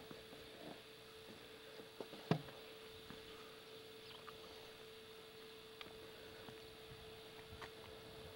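Faint steady hum and hiss of a camcorder recording, with scattered faint clicks of handling noise and one sharp knock about two seconds in.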